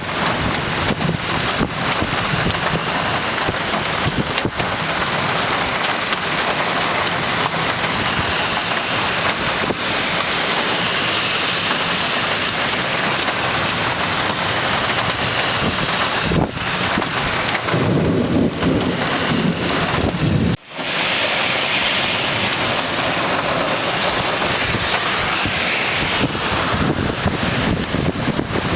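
Heavy rain falling steadily, a constant rushing hiss, with a low rumble shortly before a brief break about two-thirds of the way through.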